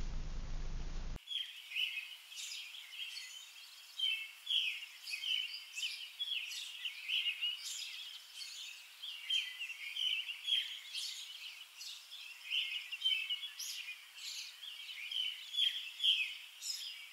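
Songbirds chirping and singing, many short calls and trills overlapping, starting after about a second of faint room hum.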